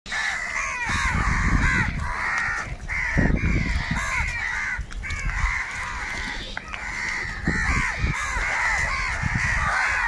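A flock of house crows cawing without pause, many harsh calls overlapping at once as they squabble over food.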